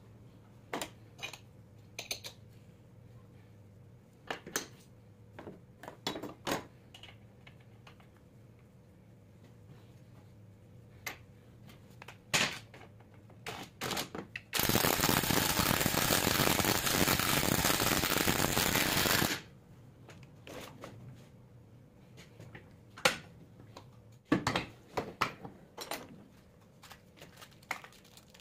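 Sharp clinks and taps of metal alternator parts being handled, then a handheld power tool with a socket runs steadily for about five seconds on a 24-volt alternator and stops abruptly. Clinks and taps follow.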